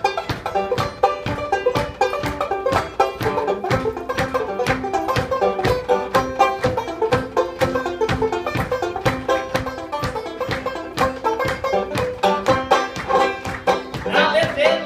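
Banjo picked in a lively instrumental passage, with hand claps keeping the beat.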